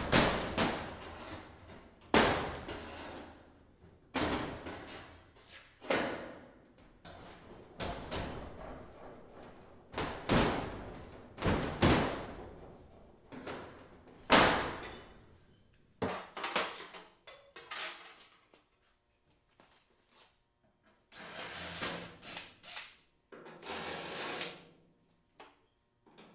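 Pry bar clanking against aluminum trim and the trailer's metal skin as the trim is pried off: sharp metallic strikes about every two seconds, each ringing on, then a few lighter clicks. Near the end a cordless drill runs twice briefly, drilling out the trim's rivets.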